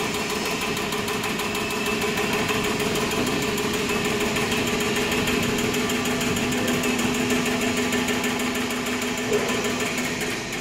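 Steady machinery running in a metal fabrication workshop: a continuous mechanical hum with a few held tones and a fine rapid buzz.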